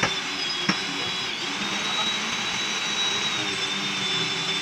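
Pneumatic impact wrench running on a truck chassis bolt: a steady high air-tool whine and hiss, with two sharp knocks in the first second.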